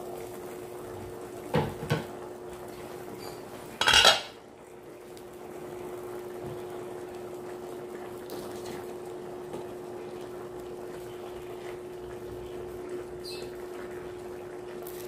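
Glass pot lid knocking twice against a stainless steel pan, then a loud metal clatter about four seconds in as the lid is set down. After that a metal ladle stirs softly in the simmering coconut-milk stew, over a steady hum.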